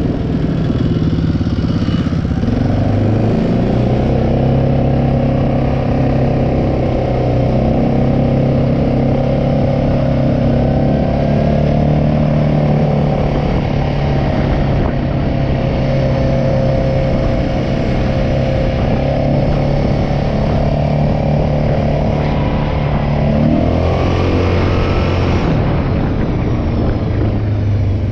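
Quad (ATV) engine running under way on pavement, its pitch climbing about three seconds in, holding steady, then rising and settling again near the end.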